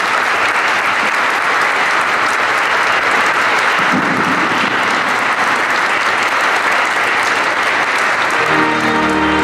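Congregation applauding, steady and sustained; near the end music starts up under the clapping.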